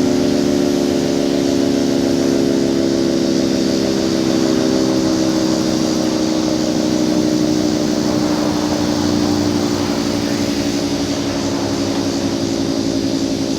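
Federal Signal 3T22 three-tone outdoor warning siren winding down after being switched off: a chord of several tones held together, slowly falling in pitch, with a slight regular waver.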